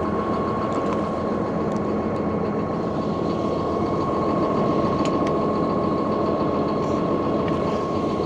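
Claas 850 tractor's engine idling steadily, with a constant whine above the engine note.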